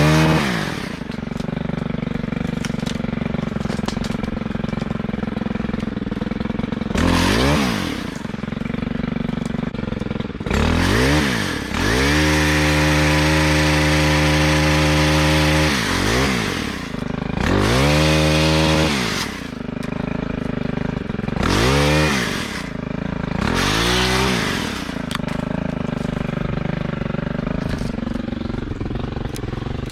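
Gas chainsaw idling between cuts and repeatedly revved up to cut branches, the engine speed climbing and dropping back each time, with one longer full-throttle cut of about four seconds midway.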